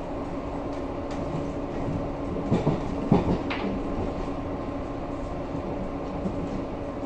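Berlin U-Bahn type H train running, heard from inside the carriage: a steady rumble with a constant hum. A short cluster of knocks and rattles comes between about two and a half and three and a half seconds in.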